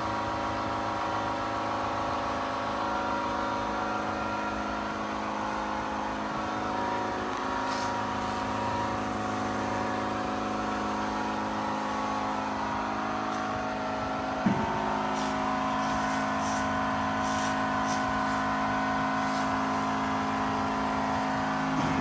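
Pressure-washer lance spraying water onto concrete-crusted truck chassis, a steady hiss over a constant machine hum. About two-thirds of the way through a short knock comes, and the hum's note shifts, followed by a few sharp ticks.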